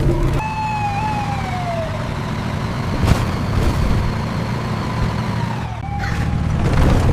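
A vehicle engine running with a steady low rumble. About half a second in, a siren-like wail slides down in pitch for over a second, and a shorter pitched tone sounds near the end.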